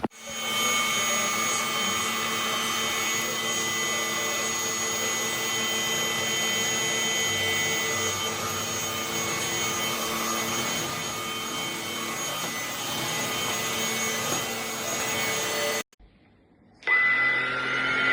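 Cordless stick vacuum cleaner running steadily, a motor hum with a steady whine over a rush of air. It cuts off abruptly about 16 seconds in, and after a second of near silence a steady motor sound with a different pitch starts.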